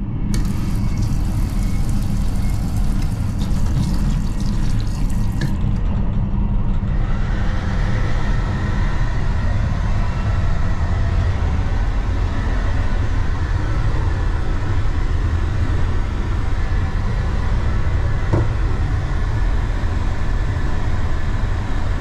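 Water running from a train washbasin tap for about the first six seconds, then cutting off. Under it and after it, the steady low running rumble of a Class 801 Azuma train, heard inside its toilet compartment.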